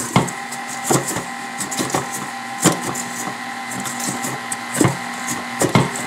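KitchenAid Artisan stand mixer running at low speed, its flat beater mixing sugar, eggs and vanilla in a stainless steel bowl: a steady motor whine with irregular clicks and knocks.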